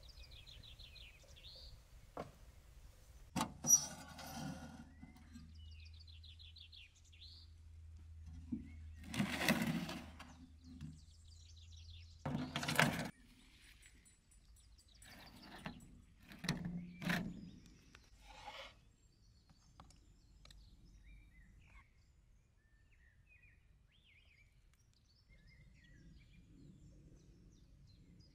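Small birds chirping with short rapid trills, over a few sharp knocks and brief scraping and rustling sounds of cookware and utensils being handled; the loudest are a click about four seconds in and a scrape near thirteen seconds.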